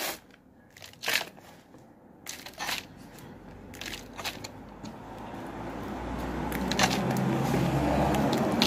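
Potting soil mixed with manure scooped by hand and dropped into a cut plastic-bottle pot: scattered crunches and clicks of soil and grit against plastic. Over the second half a low rumbling noise builds and becomes the loudest sound near the end.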